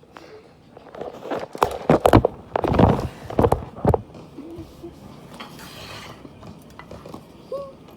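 Plastic packaging being handled and opened, with a cluster of sharp crackles between about one and four seconds in, then lighter scattered clicks.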